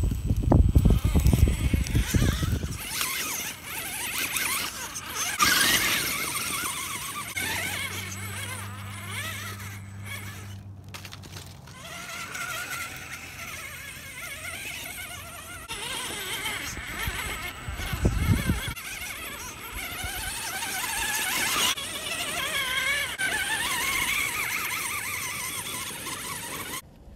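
Axial Wraith radio-controlled rock racer's electric motor and gears whining, the pitch rising and falling with the throttle as it crawls over rock. There is a low rumble in the first couple of seconds and again briefly about 18 seconds in.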